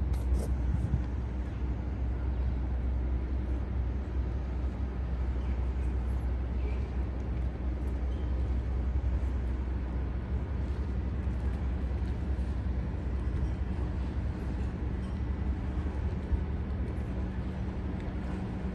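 Outdoor city-harbour ambience: a steady low rumble with a faint steady hum over it, and a few light clicks near the start.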